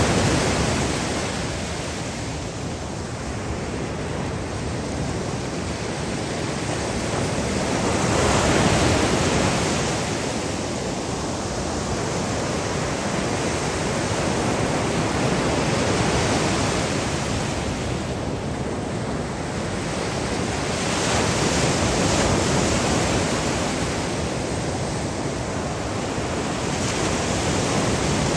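Surf breaking and washing up the shore: a steady rush of waves that swells every six to eight seconds as each wave breaks.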